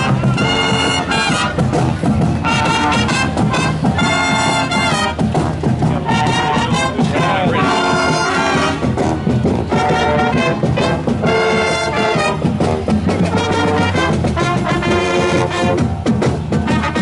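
Brass music playing at a steady loud level, in short phrases of notes one after another.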